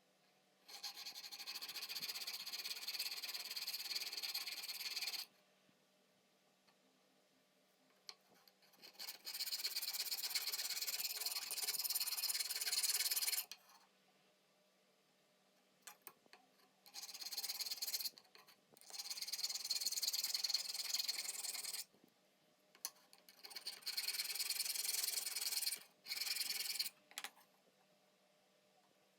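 Hand abrasive work on metal, rubbing and scraping on the old wrench being restored. It comes in several stretches of one to four seconds, with short pauses between.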